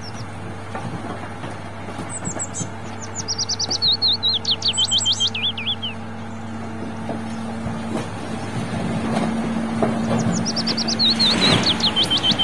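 Tipper truck's engine running with a steady low hum while its hydraulic ram raises the loaded bed, with a rush of noise near the end as the load starts to slide off. A bird chirps in two quick runs of falling notes, one early and one near the end.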